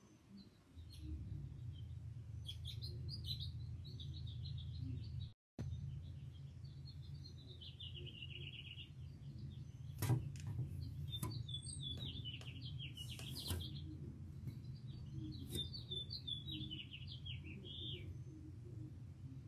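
Songbirds chirping and trilling in short repeated phrases over a steady low rumble that comes in about a second in. The sound drops out completely for a moment about a quarter of the way through, and a few sharp clicks come near the middle.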